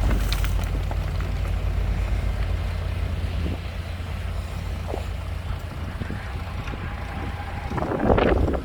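Diesel engine of heavy earthmoving machinery running with a steady low rumble. A short, louder noisy clatter comes near the end.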